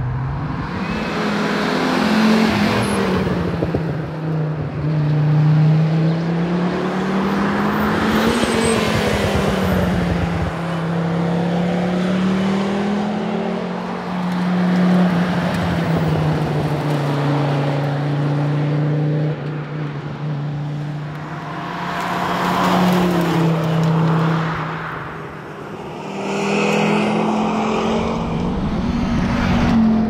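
Audi ur-Quattro rally car's turbocharged five-cylinder engine revving hard and passing by at speed, its pitch climbing under acceleration and dropping at each gear change, again and again across several passes.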